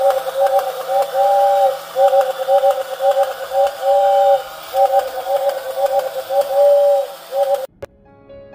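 Battery-operated tin toy locomotive's musical whistle tooting a two-note chord over and over, in a rhythm of short toots and longer held notes, with light mechanical clicking. It cuts off suddenly near the end, and soft piano music follows.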